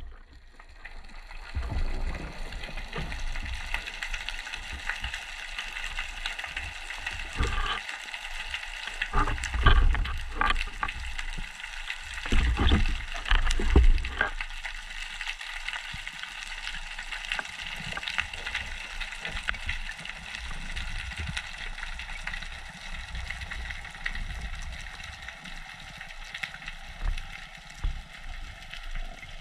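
Underwater background hiss and fine crackle picked up through a camera housing. Between about a quarter and halfway through comes a run of sharp knocks and low thumps as the diver handles the spear shaft and the speared fish on the seabed.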